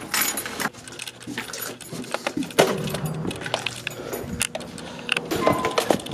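A bunch of keys jangling as a door is locked, with many sharp metallic clicks and knocks.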